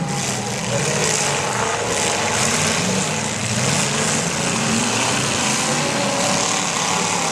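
Several demolition derby trucks' engines running and revving, their pitch rising and falling over a dense, steady hiss.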